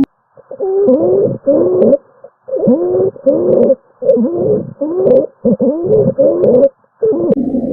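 Recorded abnormal breath sounds of the musical kind: about a dozen short, squeaky pitched sounds, roughly two a second, each sliding in pitch, with short gaps between them.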